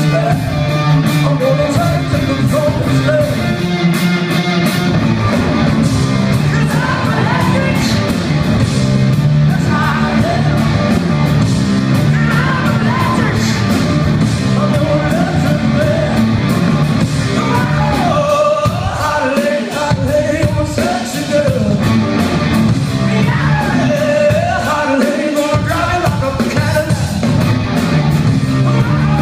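Rock band playing live, loud and dense, with drums, electric guitars and a male lead singer, heard from among the audience.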